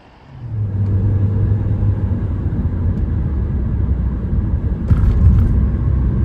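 Car cabin road noise while driving at highway speed: a steady low rumble of engine and tyres. It starts abruptly about half a second in, and there is a brief rustle or rattle about five seconds in.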